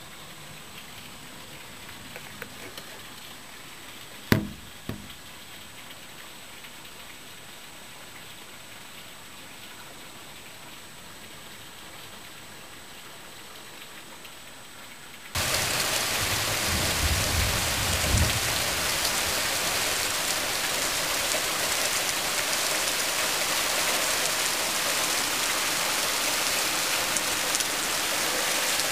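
Heavy cloudburst rain pouring down onto a lawn and a flooded street as an even hiss. There is a single sharp knock about four seconds in. About halfway through, the rain abruptly becomes much louder and fuller.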